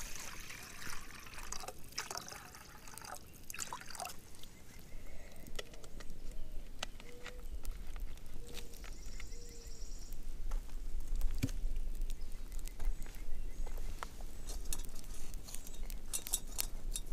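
A campfire of sticks crackling with scattered sharp pops, over low wind rumble on the microphone. Near the end a metal pot clinks as a gloved hand takes hold of it.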